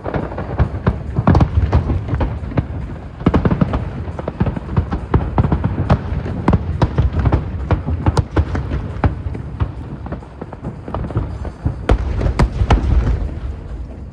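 Fireworks going off in a rapid, dense string of bangs and crackles over a low rumble, with heavier booms about a second in, around three seconds in and near the end.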